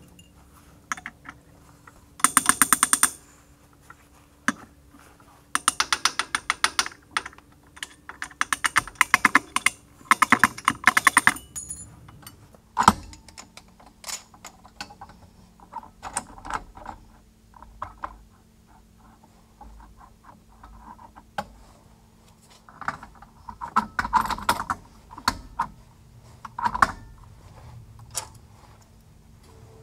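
Hand ratchet wrench clicking in quick runs, three spells in the first dozen seconds, as bolts on a tractor's three-point hitch linkage are turned. Later come scattered metal knocks and shorter bursts of clicking from the same work, over a faint steady hum.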